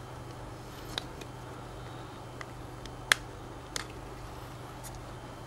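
Clear hard-plastic packaging tray clicking and snapping as an iPod Nano is pried out of it: five or so sharp, separate clicks, the loudest a little past the middle, over a steady low hum.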